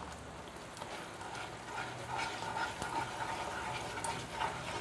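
Spatula stirring ground spices into a wet onion paste in a nonstick frying pan, with soft scraping and a low sizzle of the simmering paste, picking up about two seconds in.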